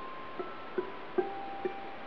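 Redwood-and-myrtle tenor ukulele, a Covered Bridge, plucked in single notes of a slow blues line: about four notes in two seconds, each ringing on after it is struck, over a steady hiss.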